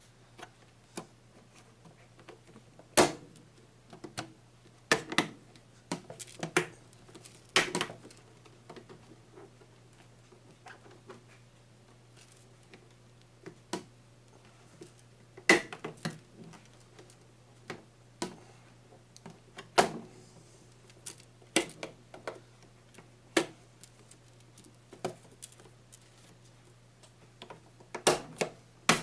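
Irregular sharp clicks and knocks of the air fryer's plastic cover and housing being handled and pressed together as it is reassembled, over a faint steady low hum.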